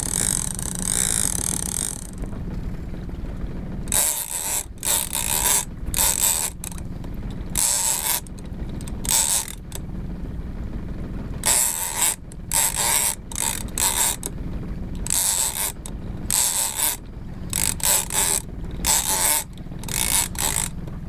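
Shimano Tiagra 30W lever-drag big-game reel being wound in many short, uneven spurts, its gears whirring with each few turns of the handle as line is won back under the heavy strain of a hooked bluefin tuna. A steady low rumble runs underneath.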